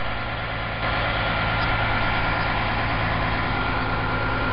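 A steady mechanical drone, like an engine idling, with a constant low hum and a thin steady tone above it. It gets slightly louder about a second in.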